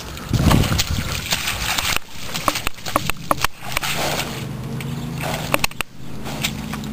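Horse pawing at a muddy puddle: irregular splashes and hoof strikes in wet sand.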